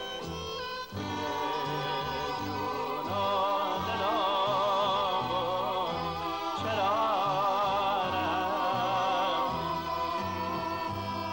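Music from a Persian song: orchestral backing over a bass rhythm, with a melody line in heavy vibrato that grows louder from about three seconds in.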